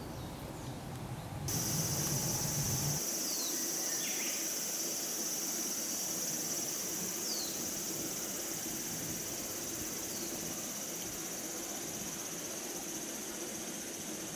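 Steady high-pitched insect drone from a summer woodland, starting about a second and a half in and holding to the end, with a few short high falling chirps over it.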